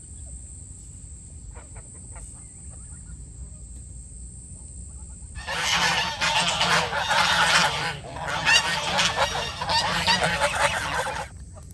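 A flock of domestic fowl calling loudly together in honking, goose-like calls. It starts about five seconds in, dips briefly near the eight-second mark, and stops shortly before the end.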